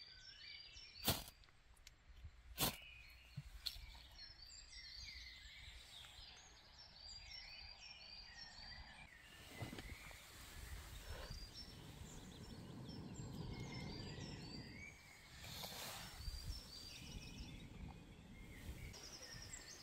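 Two sharp scrapes of a ferro rod being struck over tinder in a small folding wood stove, then a low breathy rush as the tinder is blown on to catch. Small birds chirp throughout.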